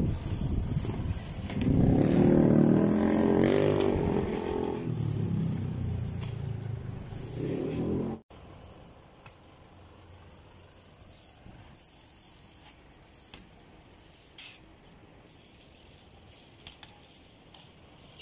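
A motor vehicle's engine running close by, its pitch rising and falling, louder for a few seconds and then fading. It cuts off suddenly about eight seconds in, and a much quieter, steady street background follows.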